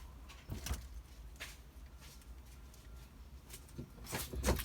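Scattered knocks, clicks and scrapes of a large plastic dashboard being shifted and worked loose by hand, with the loudest cluster of knocks near the end, over a steady low hum.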